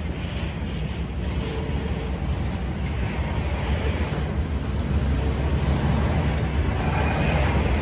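Freight train of rail-carrying flatcars rolling past: a steady rumble of steel wheels on the track that slowly grows louder, with a few brief faint squeals.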